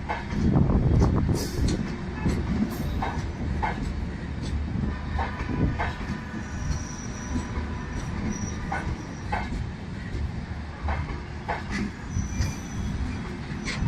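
Humsafar Express coaches rolling past on rails: a steady rumble with irregular wheel clacks over the rail joints, and brief high-pitched wheel squeals about halfway through and again near the end.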